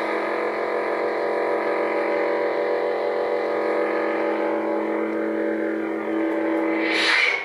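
Lightsaber hum from an SN-Pixel soundboard: a steady electronic drone of stacked tones under a shifting blade effect. Near the end a short hissing swell as the blade retracts, then the sound cuts off.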